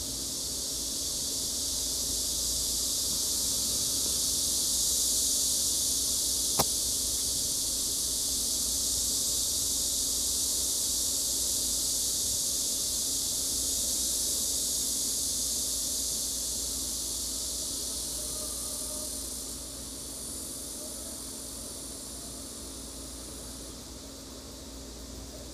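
Steady high hiss that swells and fades slowly, over a faint low hum, with one sharp click about six and a half seconds in.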